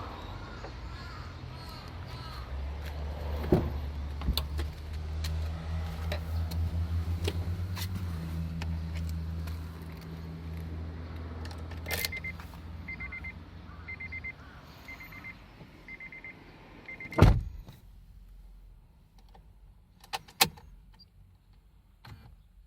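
Honda Odyssey (RB3) engine running for several seconds. Then the reverse-gear 'kin-kon' chime sounds about once a second, six times, at one high pitch. A few sharp clicks come through, the loudest a thump near the end of the chiming.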